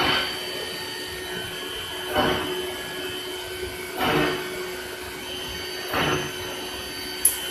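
CNC wood router running with a steady spindle whine, rising into a louder, rougher surge about every two seconds as the tool works into the board. A brief sharp high-pitched burst comes near the end.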